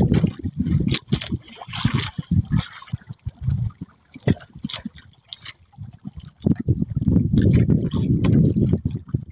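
Water sloshing and splashing against a small fishing boat at sea, with scattered knocks and gusty rumbling on the microphone that is loudest near the end.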